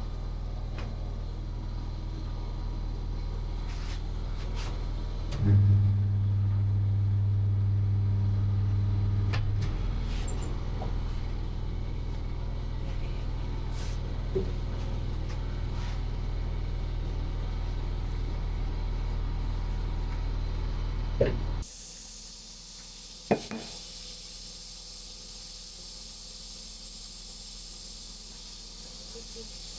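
Tyre-fitting equipment humming steadily, with a motor running louder for about four seconds. Then, from about three-quarters of the way in, a steady hiss of compressed air as a motorcycle tyre is inflated.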